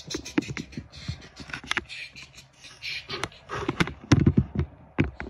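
Handling noise: irregular clicks, taps and scrapes of equipment being moved and set in place, with a cluster of heavier knocks about four seconds in.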